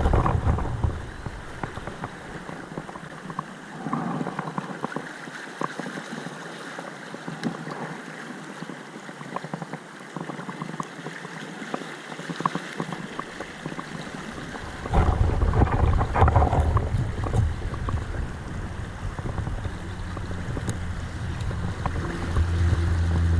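Steady rushing of a fast creek current over rocks. A low rumble comes in about fifteen seconds in and runs on.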